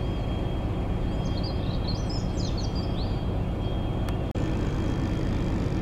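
Steady low rumble of a diesel locomotive idling, with a thin high whine held over it. Small birds chirp during the first three seconds, and the sound drops out for an instant a little over four seconds in.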